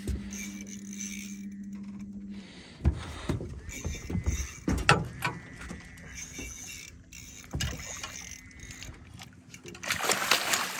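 Knocks and clatter on a boat as an arrowed fish is hauled in on a bowfishing line, with a burst of splashing near the end as the fish thrashes at the surface. A steady low hum stops about two seconds in.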